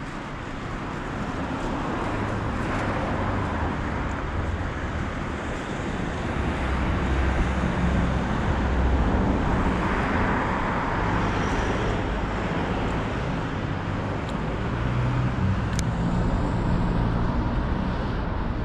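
Road traffic on a busy street: a steady rush of tyres and engines with low rumble, swelling several times as cars pass close by.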